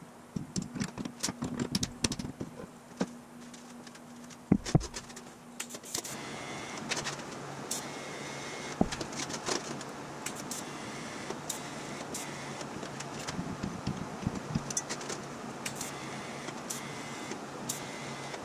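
Steel tube parts clicking and knocking as they are fitted and clamped in a bench vise. About six seconds in, a steady electrical hum of a TIG welder sets in, with crackling clicks as the arc is struck on the steel.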